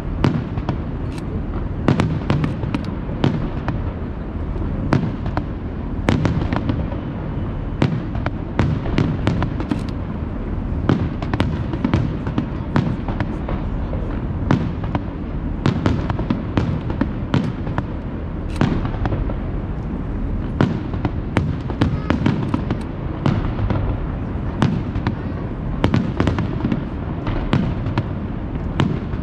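Aerial firework shells bursting in a rapid, irregular series of sharp bangs over a steady low rumble.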